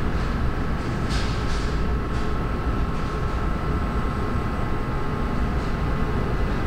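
Steady low rumble of background noise with a faint, even hum above it and a few soft hisses.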